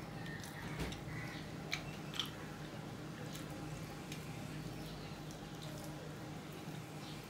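Fingers mixing and squishing rice and curry on a stainless steel plate, with a few faint clicks of fingers against the metal in the first couple of seconds, over a steady low hum.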